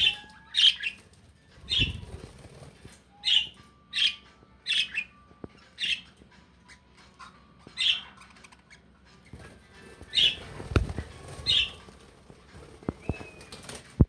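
Pet budgerigars calling, about a dozen short, sharp chirps roughly once a second, with wing flapping as a budgie flies. There are two dull thumps, one about two seconds in and one near eleven seconds.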